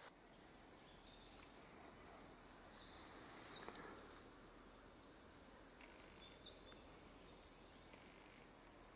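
Near silence in a woodland, with a handful of faint, short bird chirps scattered through.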